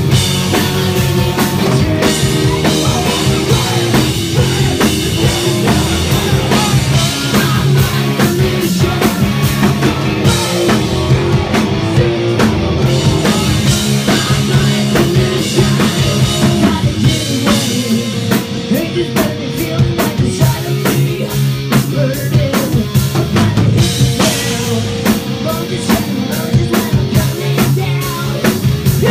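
Live hard rock band playing: electric guitars, bass guitar and a driving drum kit, with the lead singer singing at the microphone.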